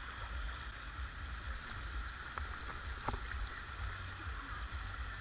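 Water-park ambience: steady rushing water under a low, uneven rumble, with a couple of faint clicks near the middle.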